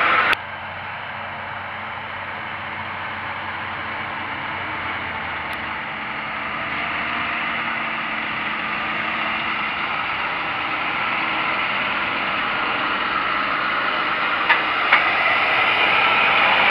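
John Deere 7530 tractor's six-cylinder diesel running as it pulls a seed drill across the field, faint at first and growing steadily louder as it approaches. Two short clicks near the end.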